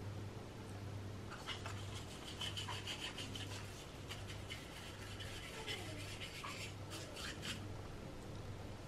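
Faint scratchy strokes of a paintbrush rubbing clear furniture varnish onto small wooden cabinet handles, with a few light clicks, from about a second and a half in until near the end. A steady low hum runs underneath.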